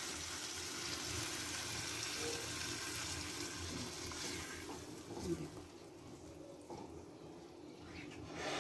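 Water poured into a hot pan of rajma masala (kidney beans in fried onion-tomato masala), a steady hiss for about four and a half seconds that then dies down, with a few faint knocks of the spatula as the thinner gravy is stirred.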